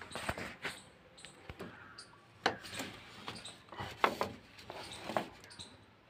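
Scattered light knocks, clicks and scraping sounds of work and handling, with sharper knocks about two and a half seconds and four seconds in.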